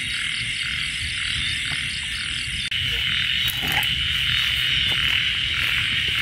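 Night chorus of frogs and insects calling steadily from wet fields, a dense high-pitched drone with a pulsing layer above it. The chorus shifts abruptly a little under halfway through.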